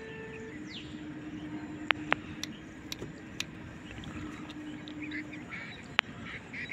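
Birds calling in open country, with a few sharp clicks and a steady low hum underneath.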